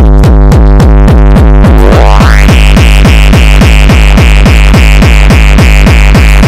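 Hardcore gabber track: a fast, steady, pitched kick drum hitting on every beat. About two seconds in, a rising filter sweep opens up a bright, hissy synth layer above the kicks.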